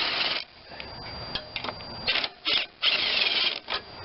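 Ratchet wrench with a 3/8 socket turning a carburetor mounting bolt on a Briggs and Stratton mower engine, in several short strokes with pauses between them.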